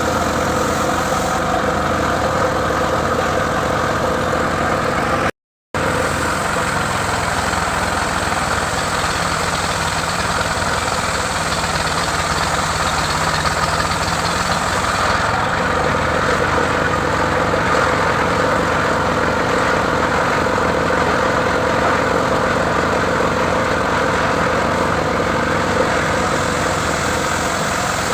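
Engine of a wood-cutting saw running steadily at an even speed, with a sustained tone and no revving, cutting out for an instant about five seconds in.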